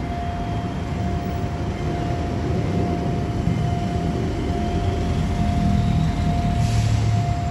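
Low rumble of idling and passing road traffic at a closed railway level crossing, swelling slightly near the end, with a steady high tone ringing throughout.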